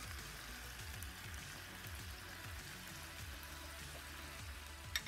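Chicken pieces coated in yogurt sauce sizzling in oil on a flat iron tawa, a steady quiet hiss. A single sharp click of a metal spoon against the pan near the end as the pieces are turned.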